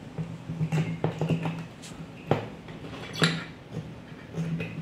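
A few light clicks and knocks from handling test leads and a circuit board on a workbench, over a faint low hum that comes and goes.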